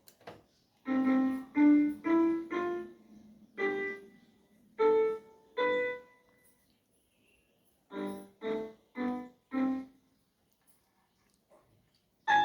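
Casio SA-41 mini keyboard playing single notes one at a time: seven notes stepping up in pitch like a scale, then after a pause four more notes, and a louder note right at the end. The keyboard is being tried out after a repair.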